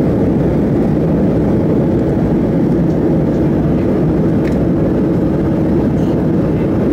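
Steady cabin noise of a Boeing 737-800 in flight: an even, low drone of airflow and its CFM56 jet engines, heard from inside the passenger cabin.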